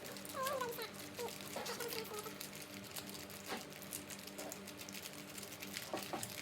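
A plastic container of slime mixture (glue and activator) being shaken by hand, with a rapid, irregular rattling and pattering. A chicken clucks in the background during the first couple of seconds.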